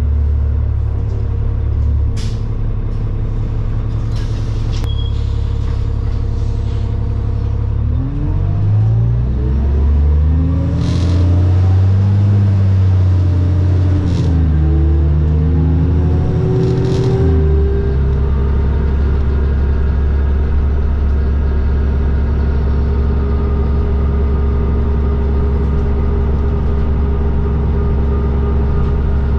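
New Flyer D40LFR diesel transit bus heard from inside. The engine runs steadily, then about eight seconds in it revs up with rising pitch as the bus accelerates, climbing and dropping back several times through the gear changes. Near the middle it settles into a steady cruising hum. A few brief hisses or clicks come through along the way.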